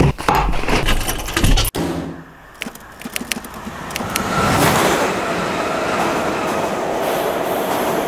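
Fabric rustling and clicks as a backpack is packed, cut off abruptly under two seconds in. After a short quieter stretch, a steady rumbling noise with a faint high whine fades up and holds.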